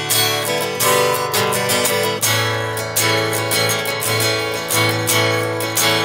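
Acoustic guitar strummed in a steady rhythm, the chords ringing on between strokes.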